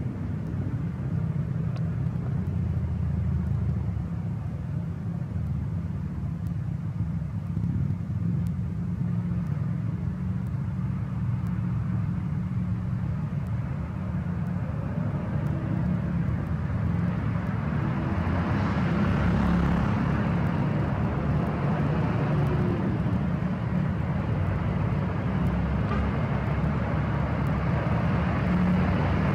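Heavy truck diesel engines running as a slow convoy rolls along a road with other traffic. A steady low rumble that grows louder about two-thirds of the way in as the vehicles come closer.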